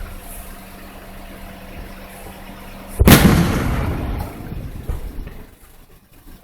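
Fireworks: after about three seconds of low background, an aerial shell bursts with a loud boom that rolls on and fades over about two seconds.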